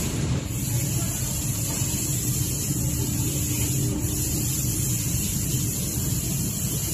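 Steady low mechanical rumble with a faint hum, as of workshop machinery running.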